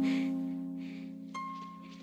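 Film score music: a low chord that starts sharply and rings on, slowly fading, joined by a single higher note about a second and a half in.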